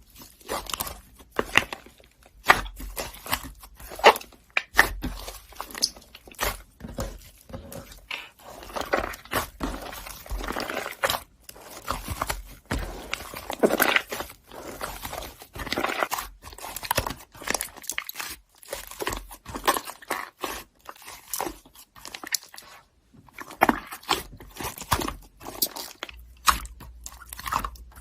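Slime being squished and pressed by hand, giving a dense, irregular run of sticky crackling and popping clicks.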